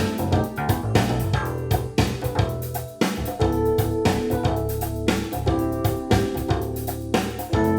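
Recorded music played back on a hi-fi system driven by a Linn Klimax Twin amplifier: plucked guitar notes over a steady bass line, with a regular beat about twice a second.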